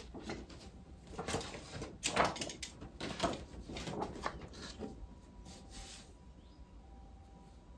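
A paper poster rustling and scraping against textured wallpaper as it is moved into place and pressed on by hand, in a run of rustles that die away about six seconds in.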